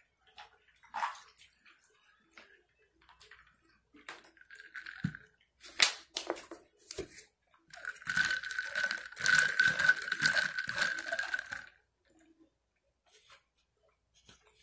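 Hands pulling apart a whole rotisserie chicken: wet tearing and squishing of the meat and skin, with a louder, continuous wet tearing stretch of about four seconds in the second half.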